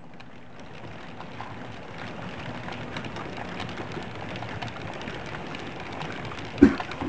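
Model railway freight wagons rolling past close by: a steady rattle of small metal wheels on the rails that grows louder, with one sharp clack about six and a half seconds in.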